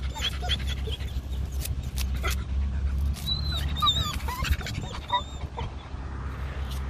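Australian cattle dog whimpering in short, high-pitched whines, several in a row, while scratching and digging at sand with his paws. The whining comes from frustration at a buried rock he cannot dig out.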